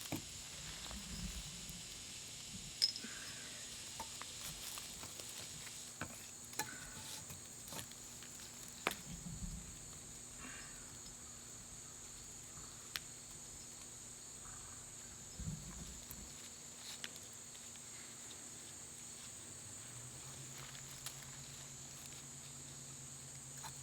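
Scattered clicks, knocks and rustles of a climbing stick and its strap being set and fastened against a tree trunk, over a steady high-pitched drone of insects.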